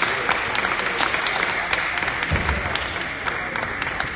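Spectators clapping hands in applause, a dense patter of claps that thins out near the end. A short dull thump comes about halfway through.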